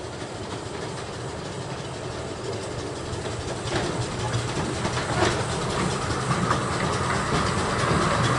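The 2 ft gauge steam locomotive Sea Lion approaching with its train of coaches, growing steadily louder. A couple of faint clicks from the wheels come around the middle.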